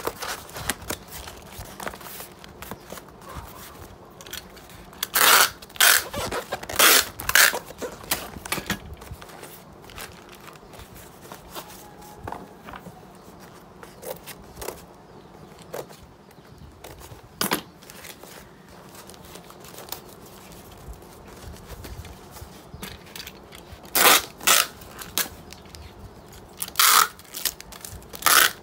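Corrugated cardboard being folded and handled by hand. There are two clusters of short, loud rasps, one about five seconds in and another near the end.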